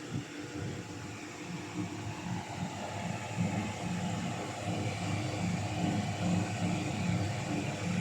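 Small 12-volt fan running with a steady whir, switched on through a relay by its heated thermal sensor; it gets a little louder about three seconds in.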